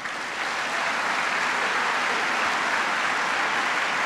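A large audience applauding, building over the first half second and then holding steady.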